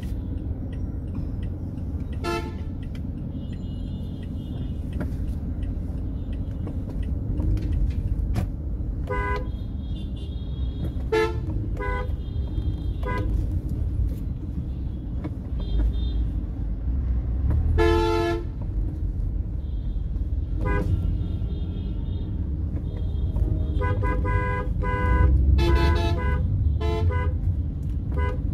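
City road traffic: a steady low rumble of engines and tyres, with car horns honking again and again in short toots from several vehicles. The horns come thickest near the end.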